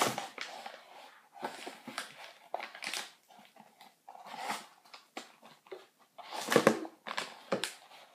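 A cardboard box of cornflour and its inner bag being opened and handled: irregular rustling and crinkling, loudest in a cluster about six and a half to seven and a half seconds in.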